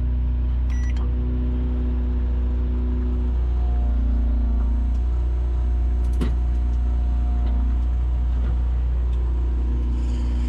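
Microwave oven running on a heating cycle after a short keypad beep about a second in, its hum over a strong steady low drone.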